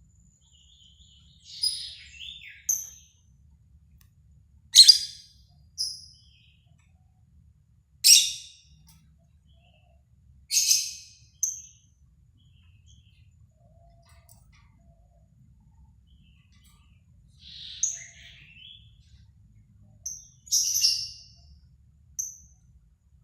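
Lovebirds calling: about a dozen short, high-pitched chirps and squawks in scattered bursts, some in quick pairs, with quiet gaps of several seconds between.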